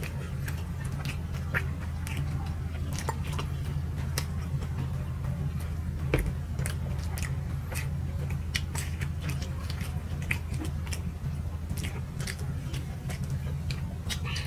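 Two people chewing soft steamed rice cakes (chitoi pitha) with mashed chili paste: frequent short, wet mouth clicks and smacks over a steady low hum.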